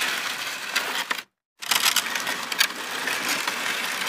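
Sound effect of an animated subscribe-button end screen: a hiss with scattered clicks. It cuts out suddenly just after a second in and starts again a moment later.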